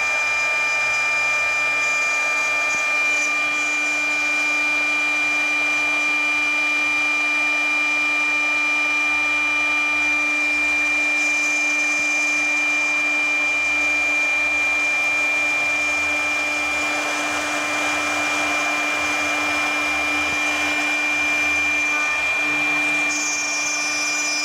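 CNC gantry router's high-speed spindle running with a steady high whine while a small end mill cuts an aluminium plate, a continuous rough cutting hiss under it.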